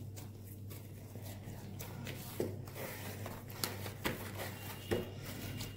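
Hands kneading soft dough in a plastic bowl: quiet pressing and rubbing with a few light knocks, over a low steady hum.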